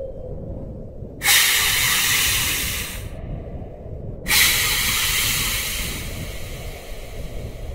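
Two long hisses, each about two seconds, played as a sound to scare rabbits away. The first stops abruptly and the second fades out, over a steady low rumble.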